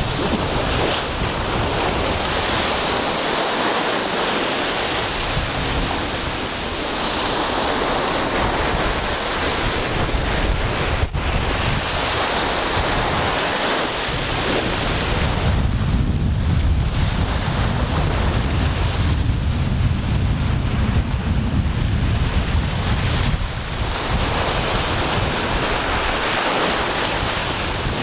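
Ocean waves washing in a continuous rush that swells and eases, with wind buffeting the microphone and adding a low rumble, heaviest through the middle.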